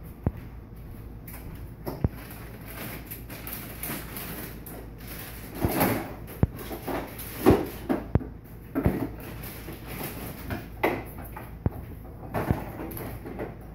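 Scattered sharp clicks and knocks, with a few short bursts of rustling between about 5 and 9 seconds in: containers and packages being handled and shifted in an open refrigerator.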